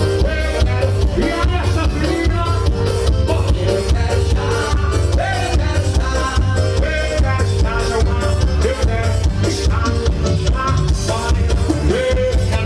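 Forró music with a steady, fast dance beat and melody over it.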